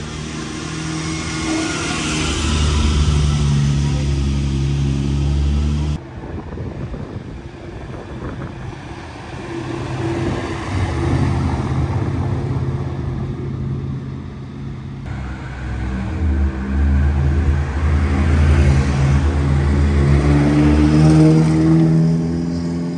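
Sports car engines running as cars move by, the engine note swelling and fading, with an abrupt change in the sound twice. Near the end an engine climbs in pitch as it accelerates.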